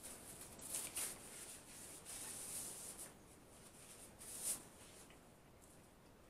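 Faint rustling and rubbing of hands and a tortilla wrap while eating. It comes in soft scratchy bursts about a second in, again between two and three seconds, and once more near four and a half seconds.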